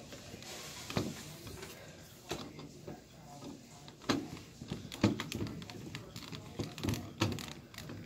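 Irregular plastic clicks and knocks as a smoke detector head is handled and twisted against its ceiling mounting base, the sharpest about five seconds in.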